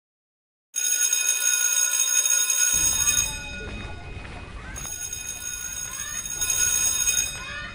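An electric school bell starts ringing suddenly about a second in, a steady high ring. From about three seconds in, a low rumble of children running and short shouts join it.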